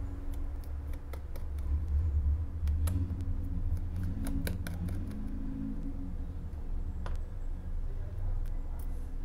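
Scattered small clicks and taps as the flex-cable connectors and parts inside an opened Samsung Galaxy A11 are unplugged and handled, over a low steady hum.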